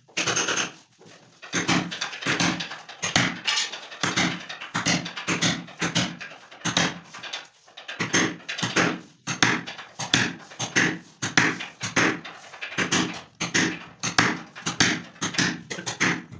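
Hammer striking a wood chisel, repeated sharp blows about two a second, chiselling a recess into a laminated wooden board.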